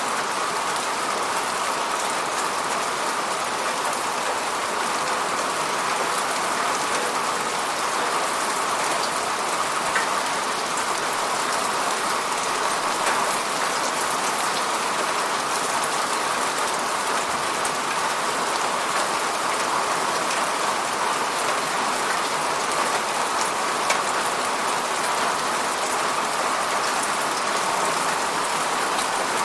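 Steady falling rain, an even hiss of drops hitting a surface, with scattered individual drop ticks.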